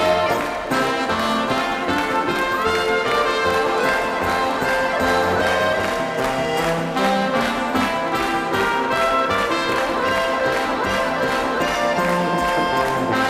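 Lively Alpine folk dance music played by a band with clarinets, accordion and guitar, with a steady beat.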